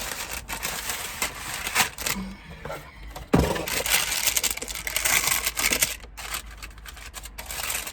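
A small tray stand being handled and set down on a table close to the microphone: a run of light clicks and clatter, with a louder knock about three and a half seconds in.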